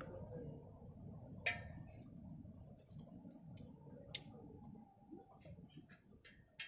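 Small freshwater snail (gugli) shells clicking against each other and against a steel bowl as they are picked from a pile and dropped in one by one. The clicks are faint and irregular, with sharper ones about a second and a half in and about four seconds in.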